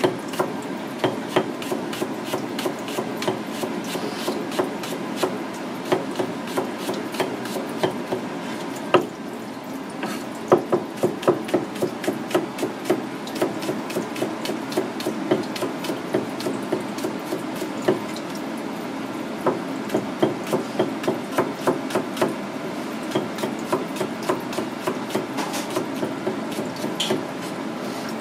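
Kitchen knife slicing green onion into thin rings, the blade tapping on a plastic cutting board in a quick, even rhythm of about three strokes a second.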